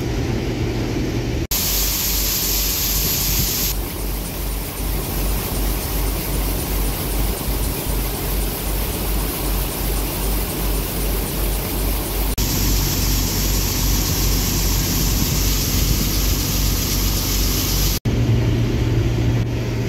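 Combine harvester running in the corn: a steady engine hum at the start and end, and in between louder machinery noise with a fast, even low throb and a high hiss, broken by sudden cuts.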